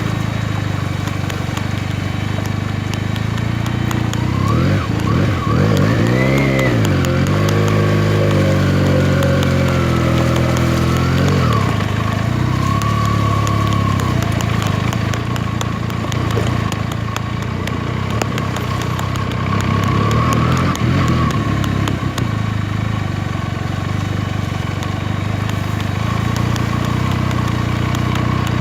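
Benelli TNT 300's parallel-twin engine running on the move, over a steady bed of road noise. Its pitch rises and falls a few seconds in, and again about twenty seconds in, as it revs through the gears.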